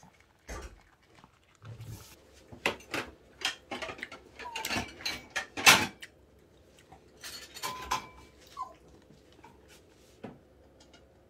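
Dishes and cutlery knocking and clinking in a quick string of clatters, loudest about halfway through, with a pet dog's short sounds mixed in.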